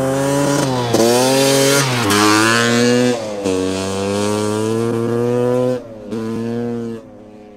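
A motorbike-type engine revving hard through several gear changes. The pitch holds high, dips briefly at each shift and picks up again, then drops away and fades near the end.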